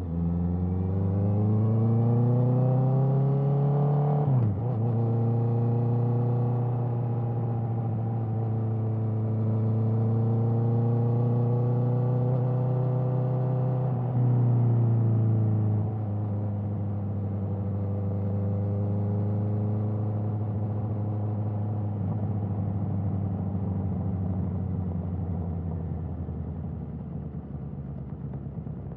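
Honda CBR650R inline-four engine through an Akrapovič exhaust, pulling under way. It revs up for about four seconds, then drops sharply in pitch at a quick-shifter upshift and holds a steady cruise. About halfway through it eases off and slowly fades.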